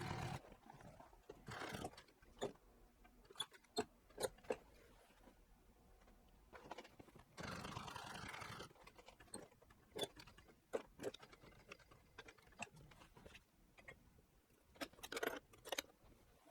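Faint, scattered clicks and taps of tools and leather being handled at a workbench, with a rustle lasting about a second near the middle.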